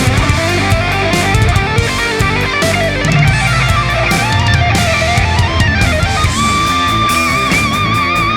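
Background music: a guitar-led rock track with drums, with a held, wavering lead note coming in near the end.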